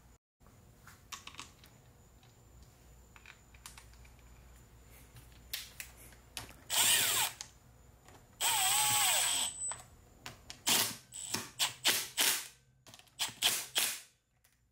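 A power drill run in two bursts of about a second each, its motor pitch sliding down and up, followed by a quick run of short clicks and knocks from hand tools.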